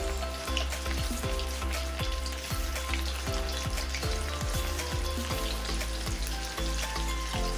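Masala- and flour-coated chicken pieces being dropped into hot oil in a kadai, the oil sizzling and bubbling steadily as they deep-fry. Background music with a steady beat plays over it.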